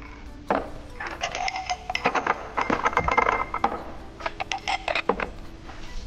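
Glasses, bottles and a metal serving tray clinking and knocking as a drinks table is set, a rapid, uneven run of clinks from about one to five seconds in, with faint music underneath.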